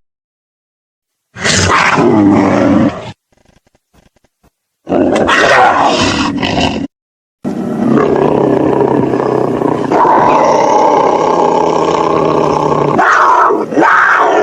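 Mutant cat kaiju's roar sound effect: three loud calls with silence between. The first two last about two seconds each; the third is long, lasting about seven seconds, and shifts higher near its end.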